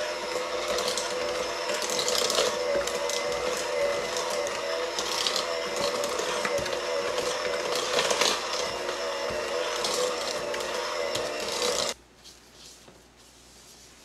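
KitchenAid electric hand mixer running steadily, its beaters working flour and almond meal into creamed butter to make a crumbly cookie dough; it cuts off abruptly about twelve seconds in.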